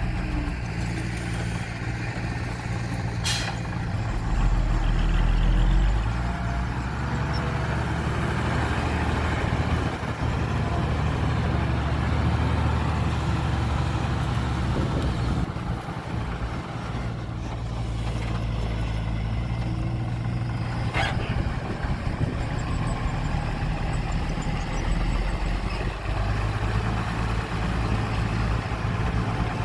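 Heavy diesel engine of construction machinery running steadily, with a louder low rumble about five seconds in and two short sharp noises, one about three seconds in and one about two-thirds of the way through.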